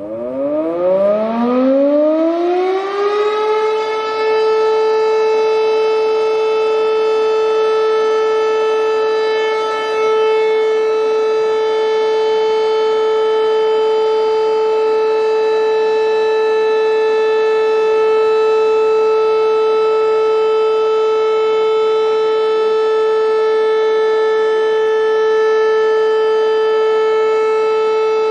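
Fire siren winding up, its pitch rising for about three seconds, then holding one loud, steady tone with many overtones.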